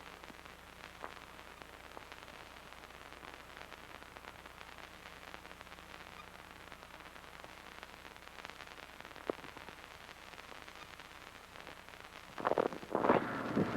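Faint hiss and crackle of an old recording with a low hum and a single click, then gusts of wind on the microphone starting about twelve seconds in.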